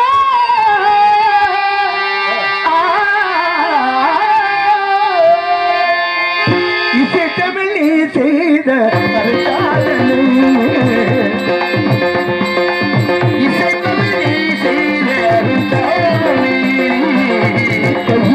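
Carnatic-style song music: a sliding melodic line over a steady drone, with drums coming in about six and a half seconds in and the music growing fuller.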